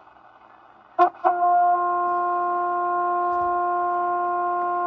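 Steady humming test tone from the Cobra 29 WX NW ST CB radio's speaker as it receives the signal generator's modulated test signal on channel 30, a sign that the receiver is working. It comes in after two short blips about a second in and cuts off near the end as the channel knob is turned.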